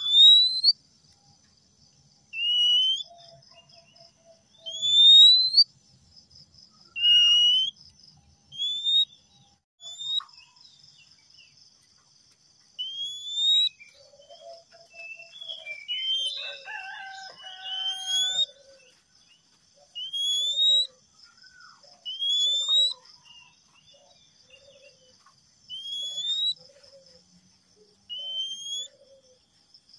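Male oriental magpie-robin whistling a clear rising note over and over, about every two seconds. A longer run of mixed, lower song notes comes about halfway through.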